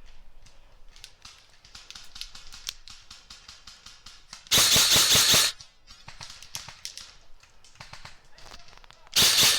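Airsoft electric gun firing two full-auto bursts of about a second each, a rapid even rattle of shots, the second burst starting near the end; fainter scattered clicks of shots in between.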